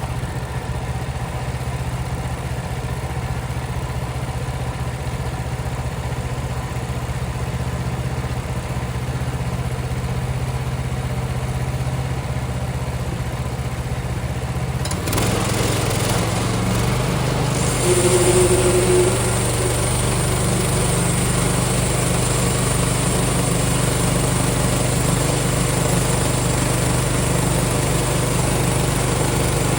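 Small gas engine of a portable band sawmill running steadily at low speed. About halfway through it is throttled up, and the running band blade adds a higher hiss as the slab cut on the pine log gets under way.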